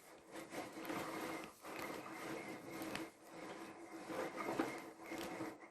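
Retractable power cord of a canister vacuum cleaner sliding through its rewind reel, with a continuous rubbing, scraping and ticking of the cord and reel mechanism.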